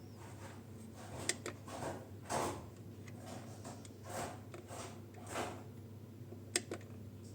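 A few light clicks and soft brief rubbing sounds of small objects being handled, over a low steady hum; the grinder motor is not running.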